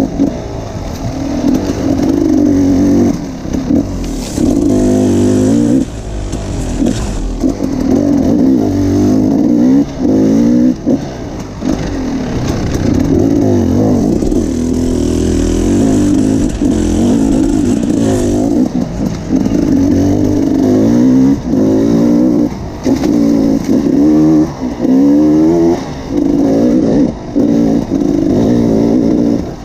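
Enduro motorcycle engine under riding load, revving up and down with the throttle. The pitch climbs and falls every second or two, with brief drops in level where the throttle closes.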